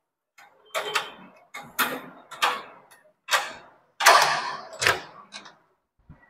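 Metal clacks and knocks from a door's bolt and latch being worked as the door is unlocked and swung open, a series of sharp strikes with the loudest about four to five seconds in.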